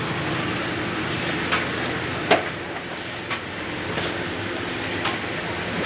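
Steady background hubbub of a crowded shop beside a road, with a few short clicks and knocks, like boxes being handled on the counter.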